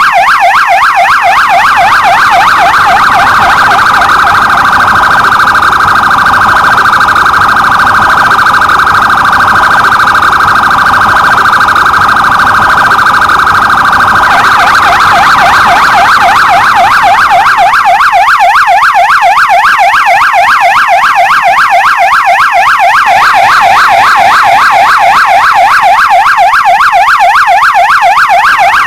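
Electronic police patrol car siren sounding in a fast yelp, its tone sweeping up and down several times a second. About four seconds in it switches to a faster, steadier warble, and about ten seconds later it goes back to the yelp.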